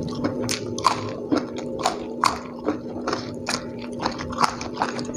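Close-up chewing of a raw round green eggplant: crisp, wet crunches about twice a second as it is bitten and chewed.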